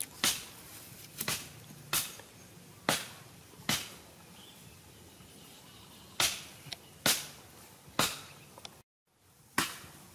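A series of sharp cracks or smacks, roughly one a second with a longer gap in the middle, each with a short fading tail; the sound cuts out completely for a moment near the end.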